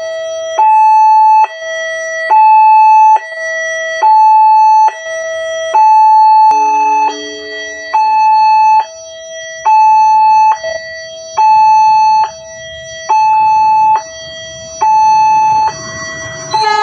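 Railway level-crossing warning siren sounding its two-tone alarm. It alternates a higher and a lower tone, each held a bit under a second, with the higher tone louder. A low rumble builds through the second half and grows toward the end.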